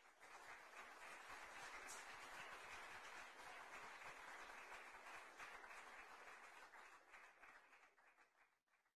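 Audience applauding, faint, dying away near the end.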